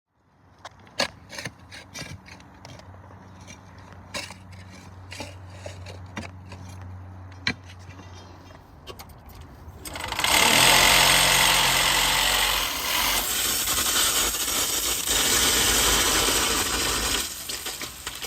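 Scattered knocks and clicks over a low steady hum, then about ten seconds in a power tool starts and runs loudly, cutting into the leaking water line to take out a section for repair.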